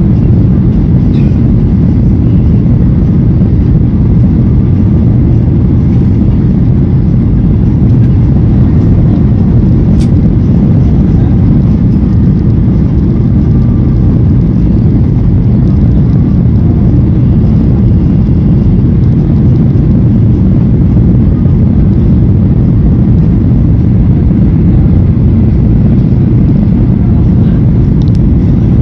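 Steady, loud low rumble of a Boeing 737's jet engines and rushing air heard inside the passenger cabin on approach to landing, with a single sharp click about ten seconds in.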